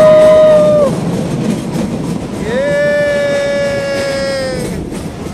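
Meter-gauge passenger train's locomotive horn sounding two long steady blasts. The first ends about a second in; the second starts about two and a half seconds in and lasts about two seconds. Under both are the rumble and clickety-clack of the coaches on the rails.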